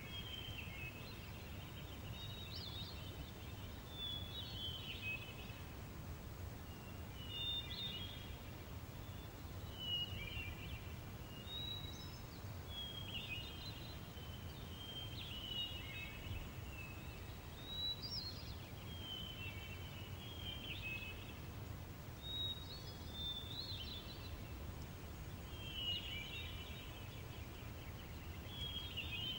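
Light field-meadow ambience: small birds chirping in short phrases every couple of seconds over a steady, faint low rumble.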